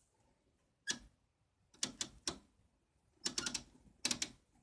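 Rotary range switches on test meters clicked through their detents. First come single clicks, then quick runs of several clicks as the knobs are turned to their highest range.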